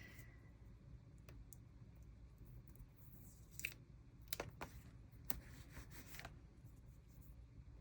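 Faint paper handling: a few light, scattered clicks and rustles as washi stickers are peeled and pressed onto a journal page, over a low room hum.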